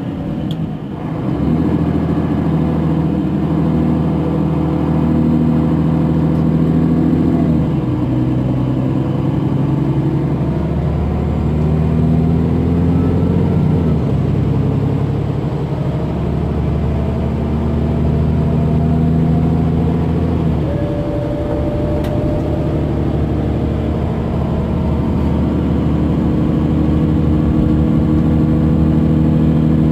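Intercity coach's Mercedes OM457 inline-six diesel heard from inside the passenger cabin, pulling hard as the bus accelerates. The engine note climbs, then drops three times as the ZF Ecomat automatic gearbox shifts up.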